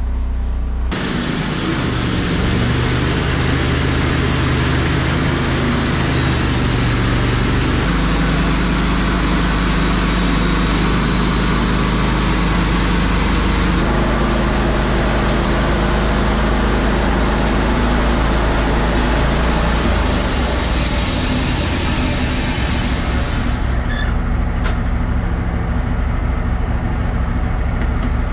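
Wood-Mizer LT15 Wide bandsaw mill running, its 4-degree band blade cutting through an ash log. A dense sawing hiss over the steady engine starts about a second in and drops off about five seconds before the end, leaving the engine running steadily.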